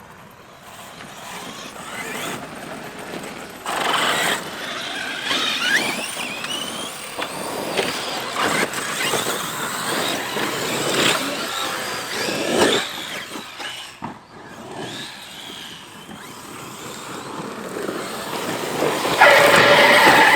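Electric RC bashing trucks running: motors whining as they rev up and down, with tyres squealing and scrabbling and several sharp knocks. Near the end a louder, steady sound with several pitches comes in.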